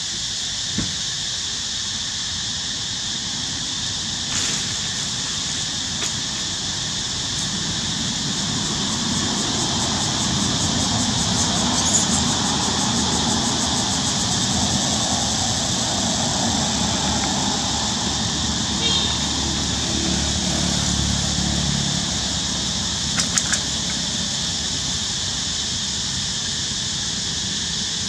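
Steady high-pitched insect drone, with a low vehicle engine rumble that swells from about eight seconds in and fades out around twenty-two seconds.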